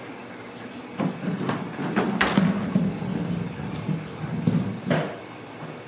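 A wooden door knocking and rattling as a cat paws at it: several sharp knocks over an uneven low rumble, the loudest knock about two seconds in, dying away shortly before the end.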